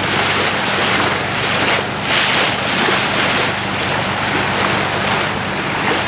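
Water rushing and splashing along the hull of a yacht under way, rising and falling, over a steady low engine hum, with wind on the microphone.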